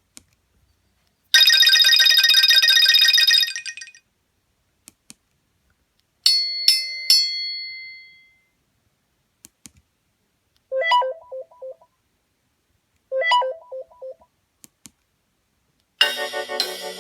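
A run of short Nokia Asha 302 alert tones: a bright electronic tone with a rapid flutter for about two seconds, then about four quick pings with the last one ringing out, then a short figure of about four notes played twice. Near the end a fuller ringtone melody with a beat begins.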